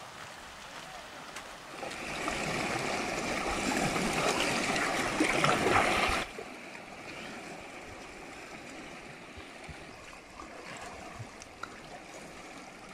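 Seawater streaming and gurgling over a rock shelf into shallow rock pools as the high tide floods them. The rush gets louder about two seconds in and stops suddenly near the middle, after which the water laps and trickles more quietly.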